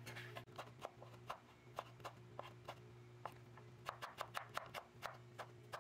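Chef's knife slicing a carrot into thin strips on a wooden cutting board: a run of short knocks as the blade hits the board, a few a second and coming faster in the second half. A faint steady low hum lies underneath.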